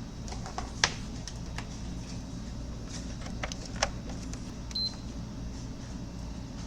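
A few sharp clicks of cables and the console being handled, then a single short high beep from a PlayStation 5 being switched on, about five seconds in, over a steady low hum.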